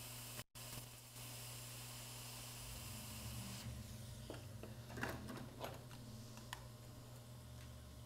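Hot air rework station blowing through its nozzle onto a connector on an iPad mini logic board, a steady hiss that cuts out briefly about half a second in and stops about three and a half seconds in. A few light clicks and taps follow, over a low steady hum.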